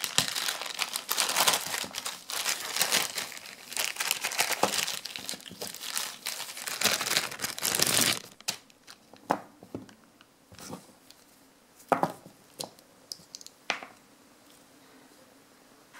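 Clear plastic zip-lock bag crinkling steadily as the coiled cable is pulled out of it. About halfway through the crinkling stops, leaving a few scattered short rustles and light clicks that die down near the end.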